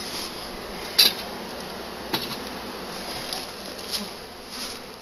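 Honey bees buzzing steadily around an open hive. A few light knocks and clicks from the wooden hive parts being handled; the sharpest comes about a second in.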